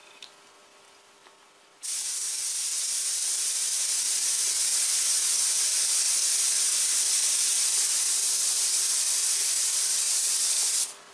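Gravity-feed airbrush spraying paint: a steady hiss of air starts about two seconds in and cuts off sharply near the end.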